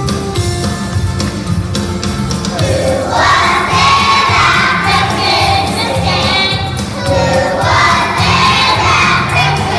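A group of young children singing loudly together over instrumental accompaniment with a steady beat. The voices come in about three seconds in and sing two phrases, with a short dip around the seventh second.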